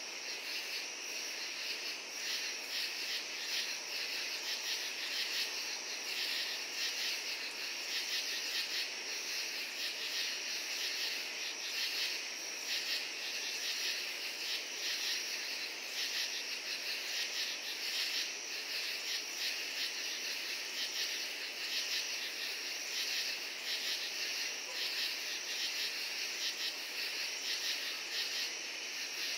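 Night chorus of crickets and katydids: many insects calling together in a steady, high-pitched mass of rapid pulsed chirps and trills.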